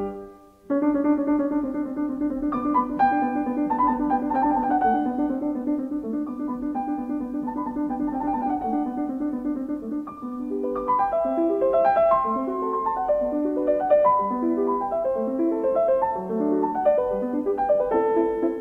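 Background piano music: after a brief gap, a slow passage over a held low note, turning to a livelier run of separate notes about ten seconds in.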